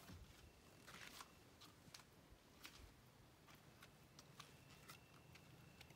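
Near silence: a few faint scattered clicks and ticks, and a faint thin high steady tone in the second half.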